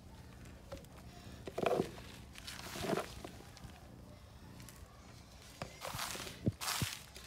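Several short rustles and scrapes as dry dairy meal is scooped and spread by gloved hands across a plastic sheet, with a couple of sharp knocks near the end.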